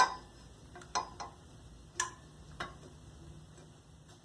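A few sharp metallic clicks and taps, about five in the first three seconds, as exhaust parts are fitted by hand against a scooter engine's exhaust port.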